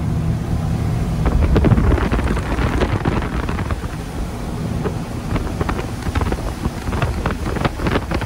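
Boat under way: a steady engine hum with wind buffeting the microphone and irregular knocks and splashes from about a second in.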